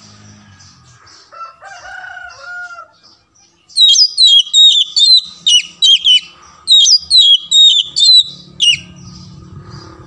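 Oriental magpie-robin singing: a run of about ten loud, clear whistled notes, each sliding sharply down in pitch, about two a second for some five seconds. It follows a softer, lower warbling call a second or so in.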